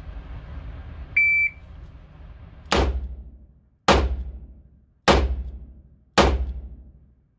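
A shot timer's short start beep about a second in, then four revolver shots about a second apart, each ringing out in the echo of an indoor range. This is one timed four-shot string of a carry-permit qualification test, the last shot coming about five seconds after the beep.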